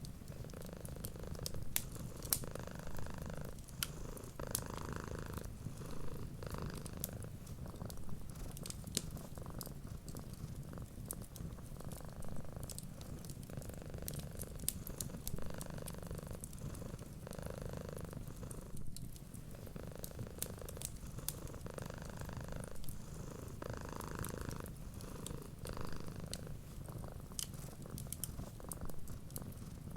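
Domestic cat purring steadily, a low rumble that swells and eases with each breath about every two seconds, with the sharp scattered pops and crackles of a wood fire.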